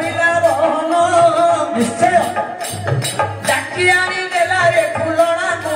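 Live Odia folk music: an electronic keyboard melody over a steady, repeating drum beat.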